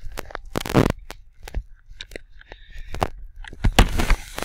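Irregular plastic clicks, knocks and rustles as a guinea pig's water bottle and the dishes around it are handled over a kitchen sink. The loudest clatter comes about a second in and again near the end.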